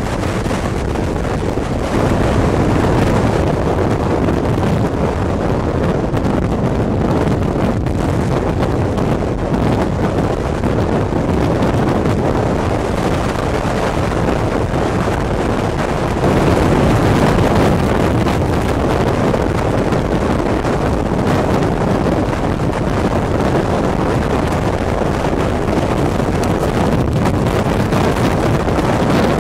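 Steady wind and road noise from a moving vehicle, with wind buffeting the microphone; it gets a little louder about two seconds in and again around halfway.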